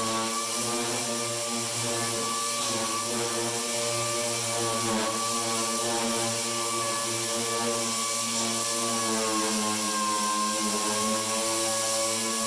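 Air-powered random-orbital sander running steadily with 40-grit paper on a painted steel van door, scuffing the paint. It makes a steady whine with air hiss, and its pitch sags slightly for a few seconds near the end.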